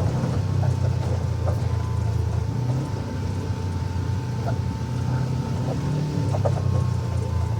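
UTV engine running steadily under way, with a constant high whine and scattered knocks and rattles from the vehicle jolting over rough trail.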